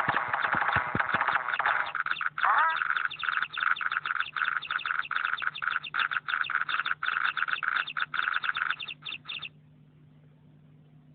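HTC Desire XC phone ringtone playing: a rapid run of short repeated pulses, with a brief rising sweep about two seconds in, stopping about nine and a half seconds in.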